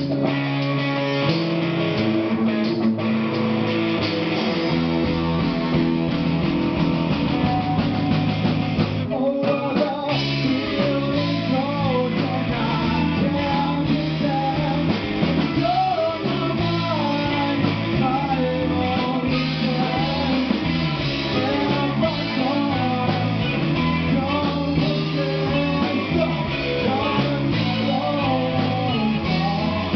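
Rock band playing live: guitars and drums, with a voice singing a wavering melody from about ten seconds in.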